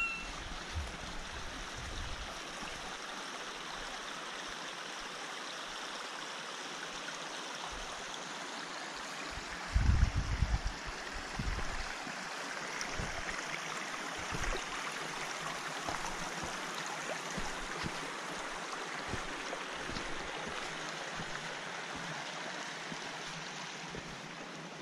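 Running water, a steady rushing like a stream, with a few low thumps about ten seconds in.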